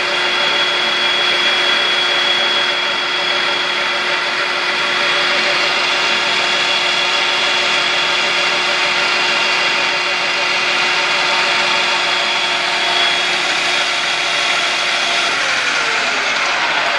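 Metal lathe running with no cut, its spinning chuck and headstock gears giving a steady mechanical whine with several constant tones. Near the end the tones slide down in pitch as the lathe is switched off and begins to spin down.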